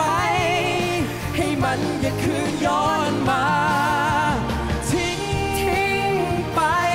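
A man and a woman singing a Thai pop duet over backing music, holding long notes with a strong vibrato.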